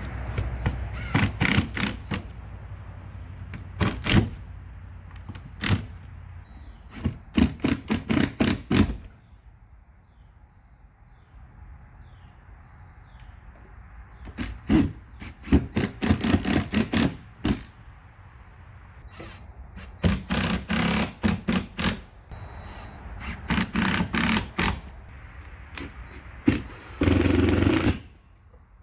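Several quick runs of sharp knocks, about five to eight a second, from work on the building trim: hammer blows or rapid nail-gun firing. Near the end comes a steady noisy burst lasting about a second.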